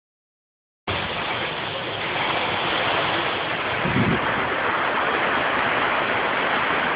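Hurricane wind and rain: a steady, dense rushing noise that starts abruptly about a second in, with one brief low thump about four seconds in.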